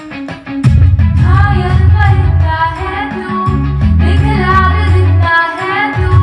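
A girl singing a song over instrumental accompaniment. The full accompaniment with a heavy bass comes in about half a second in, and the voice enters about a second in.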